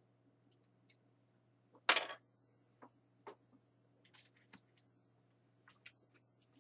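Plastic action figures clicking and knocking against each other and the sides of a plastic storage tote as they are put down and rummaged through: a scatter of light clicks, with one louder knock about two seconds in and a small cluster of clicks a couple of seconds later.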